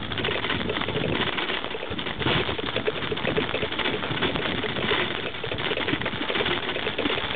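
Noise of riding a bicycle over a snow-covered path: a continuous rushing with fine, irregular crackling.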